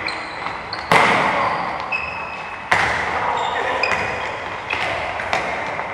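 Soccer balls being kicked and bouncing: two loud thuds, about a second in and near the three-second mark, then several lighter ones, with short high squeaks in between.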